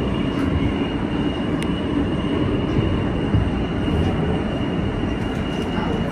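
A Kawasaki R160B subway car with Alstom propulsion running in a tunnel, heard from on board. The wheels rumble steadily on the rails, with a thin, steady high tone over them and a few faint clicks.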